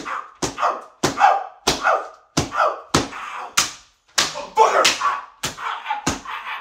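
A staged beating: a fast run of slaps or punches, roughly one every half second, each followed by a short pained cry.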